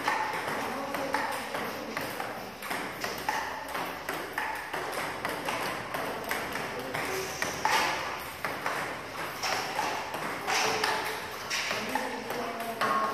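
Table tennis multiball drill: plastic ping pong balls clicking off paddles and bouncing on the table in quick, steady succession.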